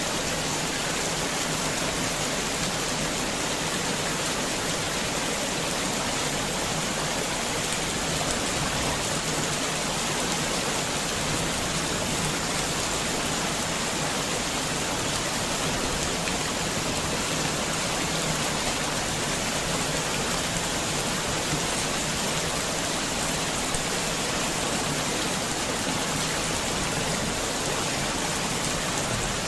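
Heavy rain falling steadily, an even hiss of water with no breaks or distinct drips standing out.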